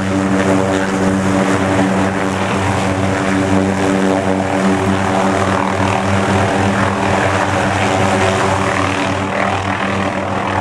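Small aircraft engine running at a steady speed, a constant pitched hum with even overtones.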